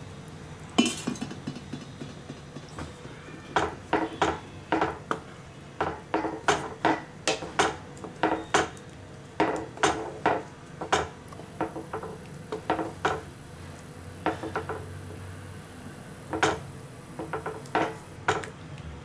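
Wooden spatula stirring thick curry in a metal pan, knocking and scraping against the pan's sides and base in quick irregular runs of clacks.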